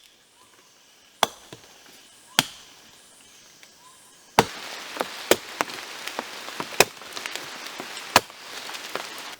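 Axe chopping into a rotten tree trunk: single hard blows a second or more apart, with smaller knocks and splintering between the later blows.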